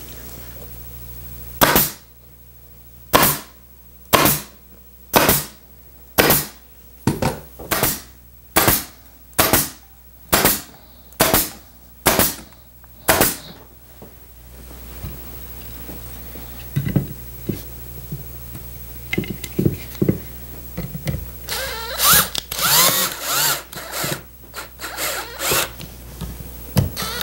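A staple gun fires about thirteen times in a steady run, roughly one shot a second, fixing a cardboard tack strip along an upholstery flap. Near the end a cordless drill runs in short bursts at the steel swivel plate of a chair base.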